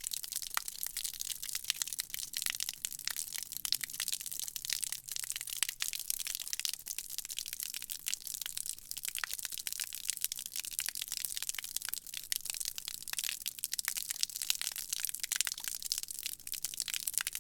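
Rain falling on the ground and into puddles: a steady, dense patter of countless small drop impacts, mostly high-pitched.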